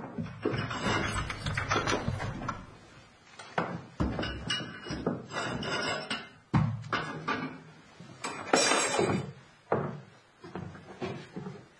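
Irregular knocks, thuds and rustling handling noises in a small room.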